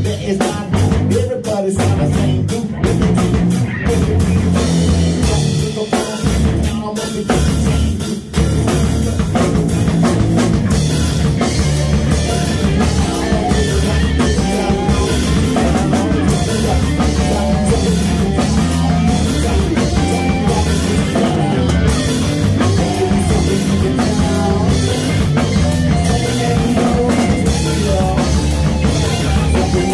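A rock band playing live in a small room: electric guitar, electric bass and drum kit, with a man on a hand-held microphone. The playing briefly drops out around eight seconds in, then runs on steadily.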